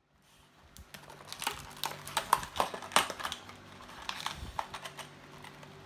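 Irregular light clicks and taps from small hard objects being handled on a workbench, over a faint steady hum.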